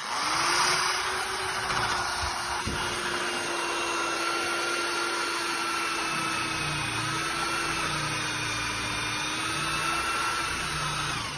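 Corded electric drill spinning a cup-style wire wheel against the rusted steel top of a griddle, scrubbing off rust: a steady motor whine over a rough scraping hiss. It starts suddenly and winds down near the end.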